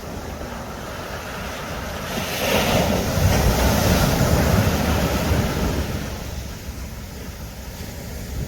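Ocean waves breaking on a beach: a surge swells about two seconds in and washes back out by about six seconds, over a steady low rumble of wind on the microphone.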